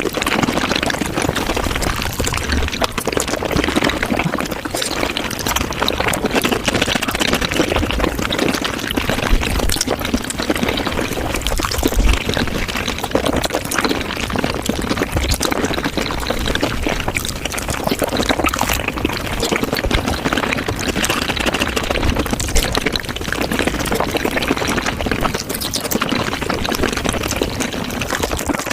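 Close-miked wet mouth sounds of someone eating raw shrimp, chewing, smacking and slurping, sped up five times into a dense, unbroken run of rapid wet clicks.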